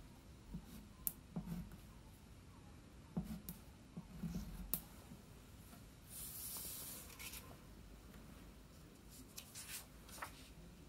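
Crayon writing on a paper card on a wooden table: short scratchy strokes with soft taps as the crayon meets the paper. About six seconds in there is a longer paper rustle as a card is slid across the table, then a few light clicks.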